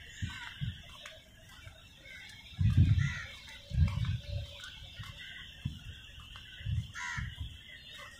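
Many birds chirping and calling together over a steady high background chorus, with a few low rumbles about three, four and seven seconds in.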